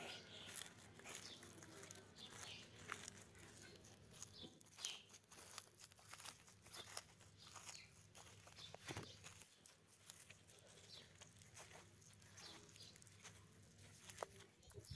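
Tortoise biting and tearing fresh green leaves: faint, irregular crunches and snaps of its beak on the leaves and stems.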